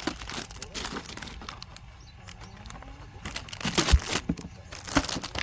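Rustling and crinkling of objects being handled, broken by several sharp knocks, the loudest about four seconds in and another about a second later.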